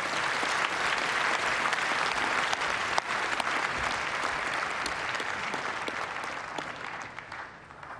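Conference audience applauding at the close of a speech, the clapping dense at first and dying away near the end.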